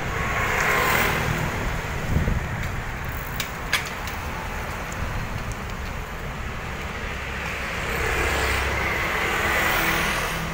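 Street traffic: a steady noise of passing road vehicles that swells twice, once near the start and again near the end, with a single sharp click in between.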